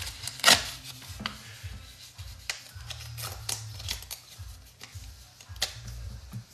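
Paper tickets being handled and folded by hand: crisp rustles and small clicks, with a sharp knock about half a second in. Quiet background music underneath.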